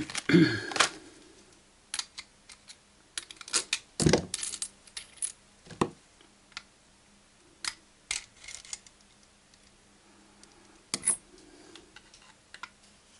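Irregular clicks and light metallic clinks of a new soldering-iron tip and its plastic blister pack being handled and the tip being set down on the bench, with a louder knock and rustle at the start and the clicks coming in small clusters.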